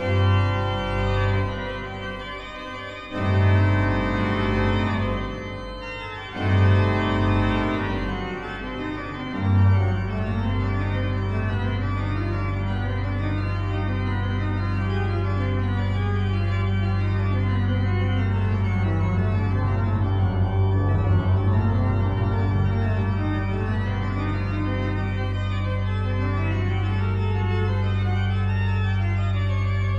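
Organ music: four chords swell and fade over the first ten seconds or so, then a low bass note is held steadily while higher notes move above it.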